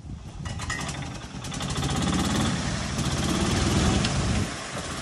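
Utility buggy's engine labouring as it tows a felled tree log on a rope, growing louder about a second and a half in and easing off near the end.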